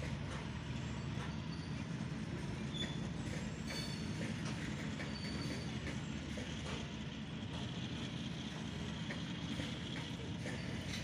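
Indian Railways freight train of covered boxcar wagons rolling past, a steady rumble of steel wheels on the rails with a few brief faint high squeaks.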